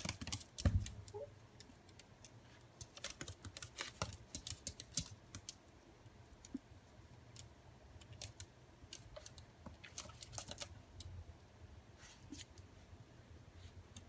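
A Toy Fox Terrier puppy's claws clicking and tapping on a hardwood floor and against mirror glass in irregular flurries as it scrabbles and paws at its reflection, with a soft thump about a second in.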